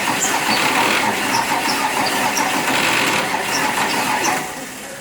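MT 86 engine running on its first start after a major overhaul, with a fast, even clatter; about four seconds in it dies away and winds down.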